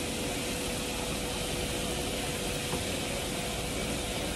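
Air fryer's fan running with a steady whoosh and a constant hum.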